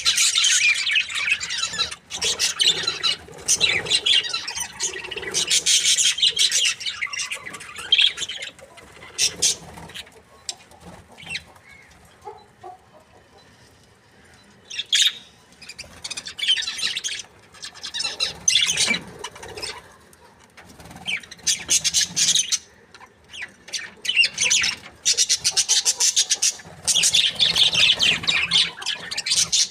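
Budgerigars chattering and chirping in bouts of fast, high warbling, with quieter spells between.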